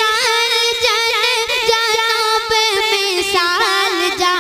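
A boy singing a naat into a microphone, drawing out one long melismatic phrase with wavy, ornamented turns over a steady held background drone.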